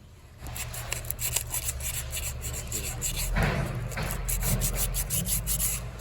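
220-grit sandpaper rubbed quickly back and forth over wood, smoothing a glued crack in a furniture leg: a steady run of short scratchy strokes that starts about half a second in.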